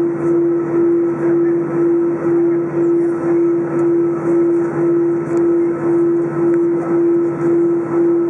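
Jet aircraft engine hum, a strong steady tone that swells and dips evenly about two to three times a second.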